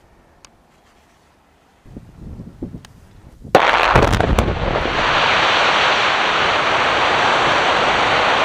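Quarry production blast, with many explosive-charged blast holes going off in sequence. A low rumble starts about two seconds in, then comes a sudden loud crack about three and a half seconds in, followed by a loud, steady rush of blast noise and air buffeting the microphone.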